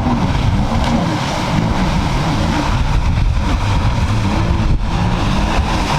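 Jet ski engine running on the water, its pitch wavering up and down with the throttle, under a heavy rumble of wind and water noise.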